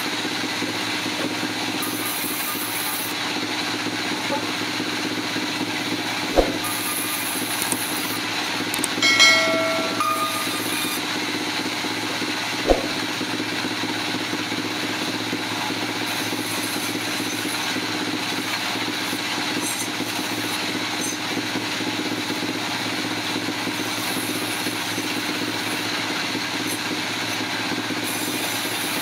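Sawmill machinery running with a steady mechanical hum. Two sharp knocks come about six and about thirteen seconds in, and a brief high squeal about nine seconds in.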